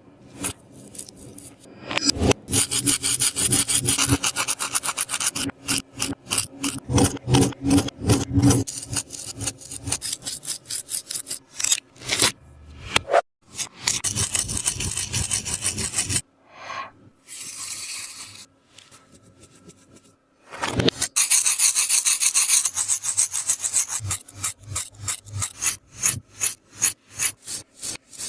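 A tape-covered taba squishy rubbed and scratched in rapid, rhythmic strokes, several a second, in runs with a few short pauses.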